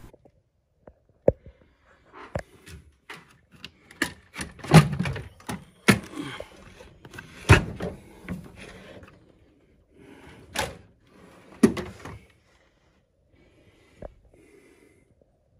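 Irregular knocks, clicks and clunks with some rustling from handling a pinball machine's backbox as it is opened up, the backglass and display panel being moved. The noises stop about twelve seconds in, with one more small click near the end.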